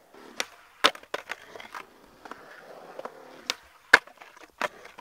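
Skateboard wheels rolling on smooth concrete, broken by several sharp clacks of the board hitting the concrete. The loudest clack comes about four seconds in, as the board meets the bowl's lip.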